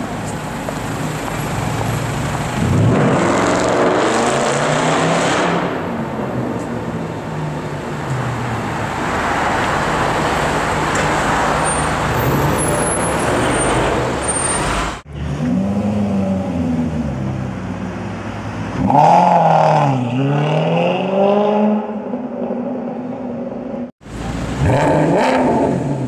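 Sports-car engines revving and accelerating on a city street, in several short clips joined by abrupt cuts about 15 and 24 seconds in. The engine pitch rises and falls with each rev, loudest in sharp blips just before 20 seconds and near the end.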